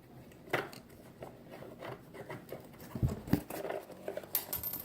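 Scattered light clicks and taps of hands working a homemade squishy vending machine, with two louder low knocks about three seconds in, as a pen prize sticks inside the dispenser.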